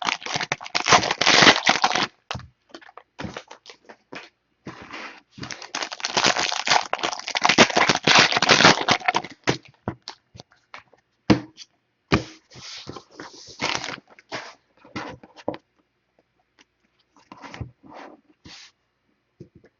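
Trading-card pack wrappers crinkling and cards being handled: long bursts of rustling and crinkling with scattered taps and clicks between, thinning to a few light taps near the end.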